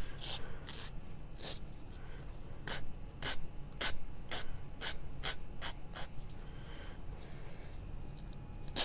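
Nail file rasping along the edge of a small crafted cut-out in short strokes, about two a second, sanding away the excess paper overhanging its edges; the strokes grow fainter over the last few seconds.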